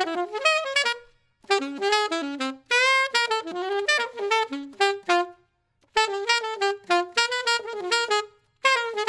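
Alto saxophone playing fast bebop lines, a quick run of separate notes in several phrases with short breath gaps between them, articulated in bebop style.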